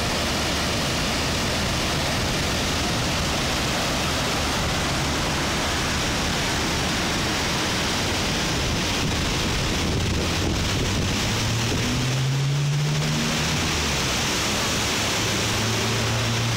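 Vltava river in flood: fast, turbulent floodwater rushing and churning in a loud, steady roar. A low droning tone joins about twelve seconds in.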